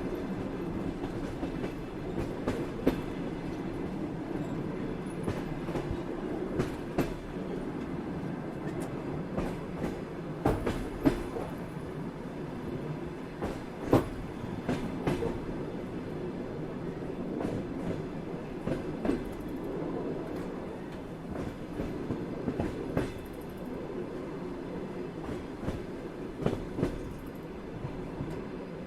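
Train in motion: a steady rumble of the running train with irregular clicks and knocks of the wheels on the track, some in quick pairs, one louder knock about halfway through.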